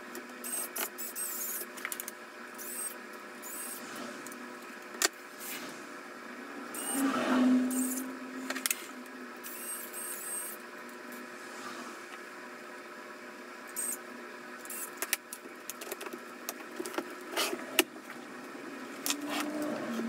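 Clicks, taps and light clatter of a screwdriver and small laptop parts being handled during a drive and RAM install, over a steady background hum. The loudest moment is a short rubbing sound with a brief tone about seven seconds in.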